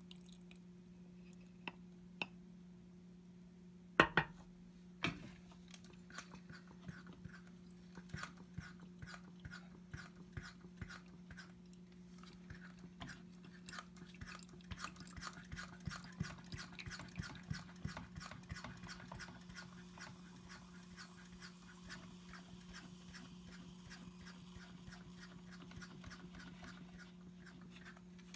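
Vacuum filtration through a fritted glass funnel: a fast, irregular crackling and sputtering of liquid and air being sucked through the filter, densest in the middle, over a steady low hum. Two sharp clicks come about four and five seconds in.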